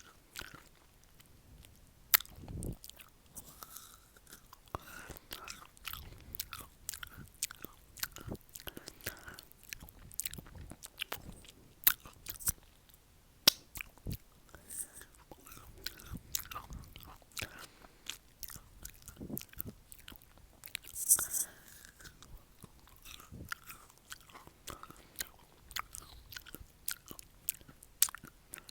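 Close-miked bites and chewing of a crisp, juicy pear, with many sharp crunches and wet mouth clicks.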